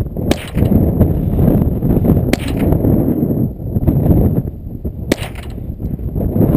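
.22 LR rifle fired three times, each shot a short sharp crack, about two to three seconds apart. Heavy wind rumble on the microphone runs underneath.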